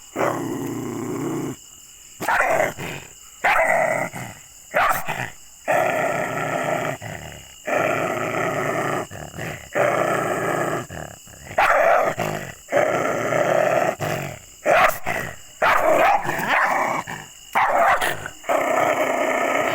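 A dog growling angrily in long drawn-out growls, over and over, broken by short sharp barks.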